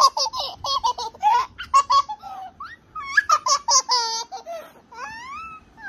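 A toddler laughing hard in quick high-pitched bursts, breaking into squealing glides near the end.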